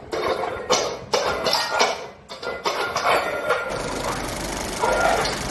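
Beagle puppy digging, its claws scratching in quick, irregular bouts. After about three and a half seconds a steady hiss takes over beneath fainter scratching.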